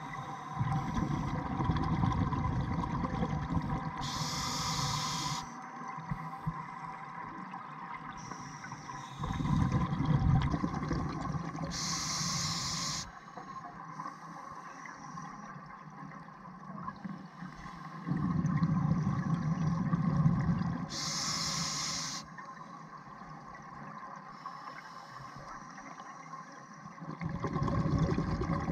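Scuba regulator breathing underwater: a rumble of bubbling exhaust alternates with a short sharp hiss, in a slow cycle of about one breath every eight to nine seconds, four breaths in all.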